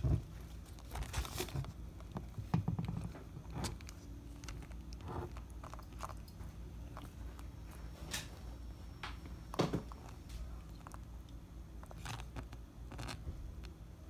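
Savannah monitor lizard eating raw egg from a bowl: irregular wet smacks and jaw snaps as it laps and bites at the egg, a few louder than the rest.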